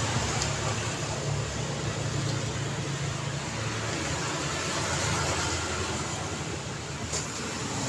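Daytime road traffic: a steady stream of passing cars and other vehicles, with engine rumble and tyre noise. A short click near the end.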